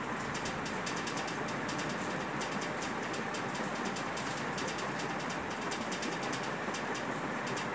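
Steady room noise with a rapid, irregular clicking running through it.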